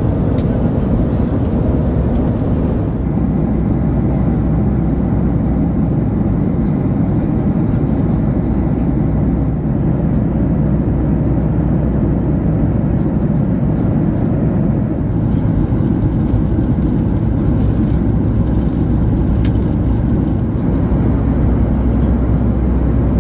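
Boeing 737 MAX cabin noise in cruise: the steady low rumble of the engines and rushing airflow, with an even hiss above it, unchanging throughout.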